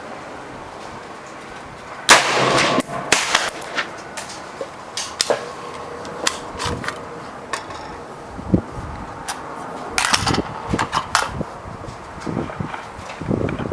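A .223 AR-15 rifle firing one loud shot about two seconds in. Fainter sharp cracks and clicks follow at irregular intervals, with a cluster of them near the two-thirds mark.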